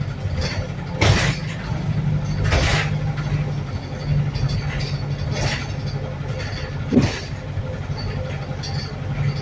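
Wright New Bus for London diesel-electric hybrid bus heard from inside while moving: a steady low engine drone. A few brief louder rushes of noise come and go over it.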